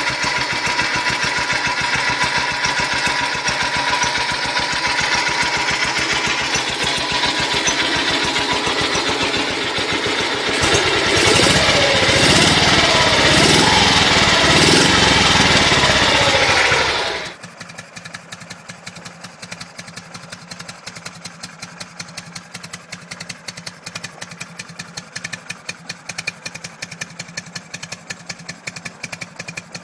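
Motorcycle engine running, revved up and down with rising and falling pitch from about eleven seconds in, then cutting off abruptly to a quieter engine idling with an even, rapid beat.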